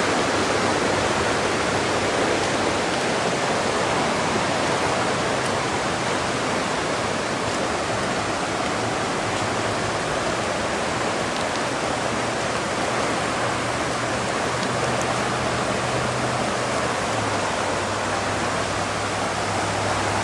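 Floodwater rushing and pouring in a steady, even wash of water noise.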